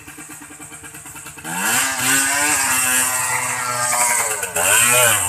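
Dirt bike engine ticking over low, then revved hard about one and a half seconds in. It holds at high revs, drops briefly, and climbs again near the end.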